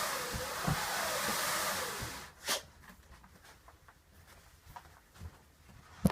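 Homemade wind machine (aeoliphone): scrap-wood slatted wheels cranked against canvas fabric, making a whooshing wind sound whose pitch rises and falls. It stops about two seconds in, and a single knock follows shortly after.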